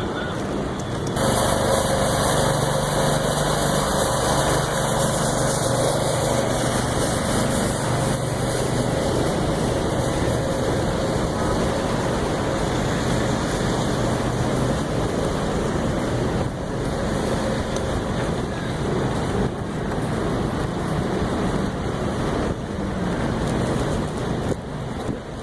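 Street noise with an engine running steadily, its low hum clearest from about a second in through the first half, over a constant rushing noise.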